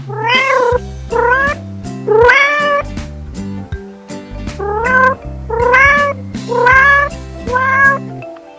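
A cat meowing about seven times, each meow rising then falling in pitch, with a pause about halfway through, over background music with a steady beat.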